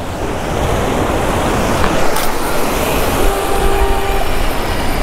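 Wind buffeting the microphone over surf washing against jetty rocks, a steady rumbling rush. A single sharp click comes about two seconds in, and a faint thin whine holds for about a second a little past the middle.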